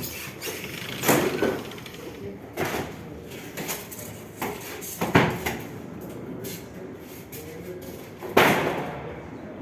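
Several sharp knocks and bangs, about four over the stretch, the loudest near the end, like doors or panels being moved and bumped.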